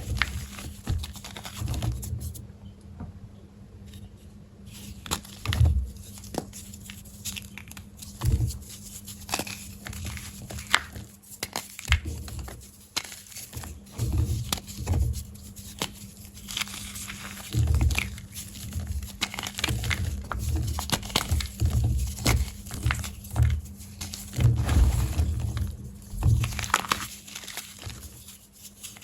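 Blocks of gym chalk being crushed by hand close to the microphone: crisp crunching and crumbling crackles in uneven bursts every second or two, each with low thumps from the squeezing.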